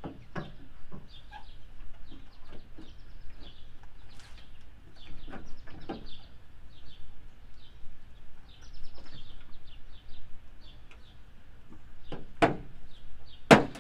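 Two sharp plastic snaps near the end as a new LED taillight housing is pressed into its mounting clips, with lighter knocks of handling before them. Small birds chirp throughout.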